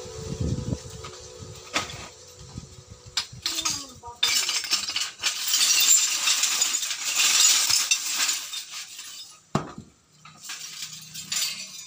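Broken glass of a shattered flat-screen TV panel clinking and crunching as the panel is pried and broken apart by hand, with a few sharp knocks and a long stretch of dense glass crackling in the middle.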